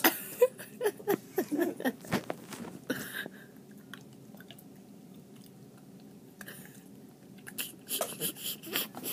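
A person chewing and smacking on a mouthful of dry ground cinnamon, with mouth clicks and short muffled throat sounds in the first few seconds. A quieter stretch follows, then more mouth clicks near the end.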